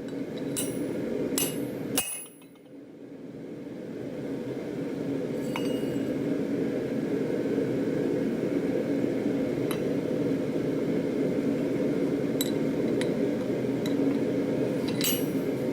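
Light metallic clinks of steel tools, a handful scattered through, over a steady low rushing noise, with a brief drop about two seconds in.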